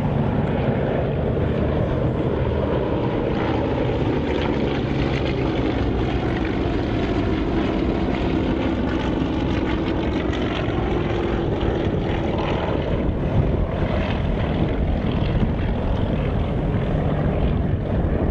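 Propeller aircraft engine running steadily, with a faint tone that slowly falls in pitch near the middle as the aircraft passes.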